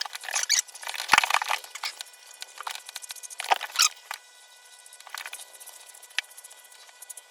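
Small wire slicker brush raking through a border collie's long, shedding coat in quick, irregular scratchy strokes, louder in the first few seconds and lighter after.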